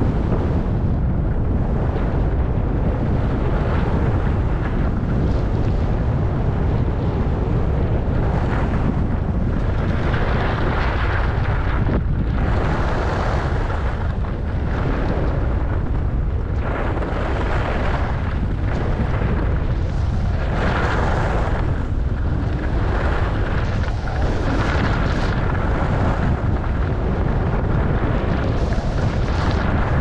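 Skis hissing and scraping over groomed snow during a downhill run, swelling with each turn about every one to two seconds, over a steady low rumble of wind buffeting the microphone.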